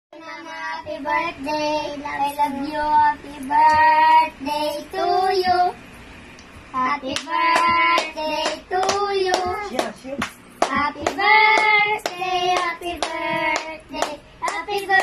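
Young boys singing together, clapping their hands along with the song, with a short pause about six seconds in.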